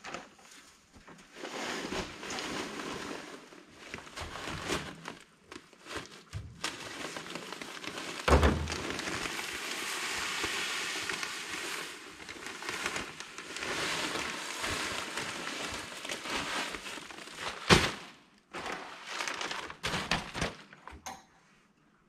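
Magnesium chloride (Mag) dust-control flakes poured from a plastic sack into a tow-behind broadcast spreader's hopper: a steady rushing hiss of pouring flakes in two long pours, with crinkling of the bag. Two heavy thumps stand out, one about a third of the way in and one near the end.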